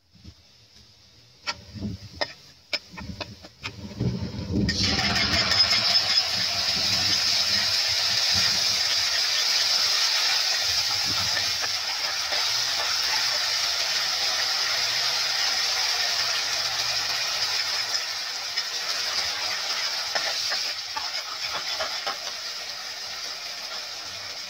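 A few clicks and knocks of a metal spatula in a frying pan, then, about five seconds in, a sudden loud sizzle as brown sauce hits the hot oil. The hiss stays steady while the sauce is stirred and eases off a little near the end.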